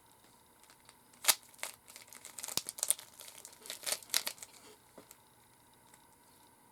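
Rubik's Cube being turned by hand: a run of sharp, irregular plastic clicks and rustles for about three seconds, the loudest near the start, then one more click.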